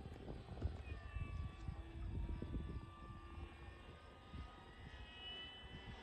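The electric motor and propeller of an FMS Corsair radio-controlled model plane whining faintly as it flies overhead, the pitch gliding slowly up and down as it passes, over a low rumble.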